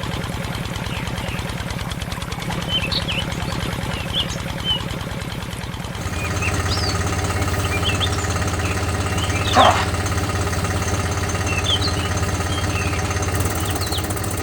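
An engine running with an even, rapid chugging rhythm, getting louder and fuller about six seconds in. Birds chirp now and then.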